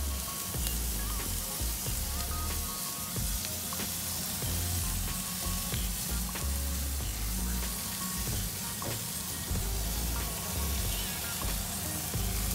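Barbecue-sauced meat sizzling on a charcoal grill grate: a steady hiss with scattered small pops and crackles.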